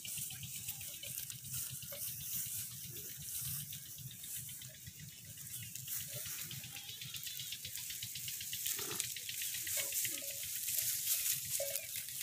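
Cattle grazing in dry grass: an uneven crackling, rustling hiss of grass being torn and cropped. A few short ringing tones come near the end.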